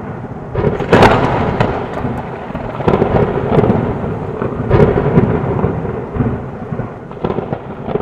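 Thunderstorm: rolling thunder over steady rain. The loudest crack comes about a second in, with further cracks through the middle and near the end, and the rumble slowly dies away in the second half.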